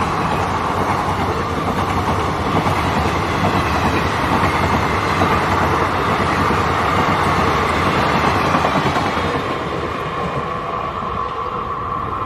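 Passenger coaches of an express train passing through without stopping: a steady, loud rumble and clatter of wheels on the rails, with a steady high ring that grows stronger near the end.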